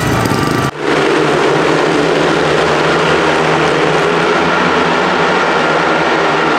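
Speedway bikes' 500cc single-cylinder methanol engines running hard as they race round the track, a loud, steady engine sound. It dips sharply and changes character a little under a second in.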